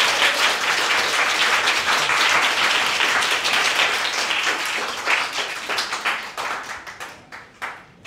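Audience applauding: a dense burst of clapping that thins out after about five seconds to a few scattered claps and dies away near the end.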